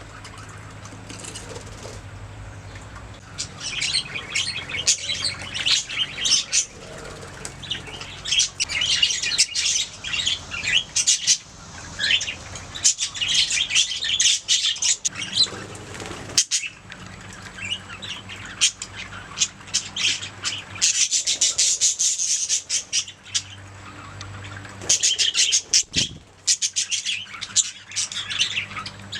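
Budgerigars chattering and chirping in bursts of quick, high warbling notes, quieter for the first few seconds.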